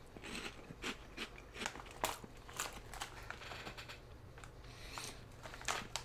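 Faint, irregular crunching as small cheese-flavoured snack crackers are chewed, mixed with a foil snack bag crinkling in the hands.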